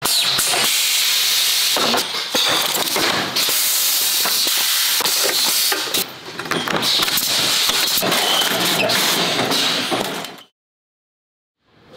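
Metalworking factory machinery and handling noise: a steady high hiss with many sharp clicks and clanks, changing abruptly about two and six seconds in, then cutting off to dead silence for about a second near the end.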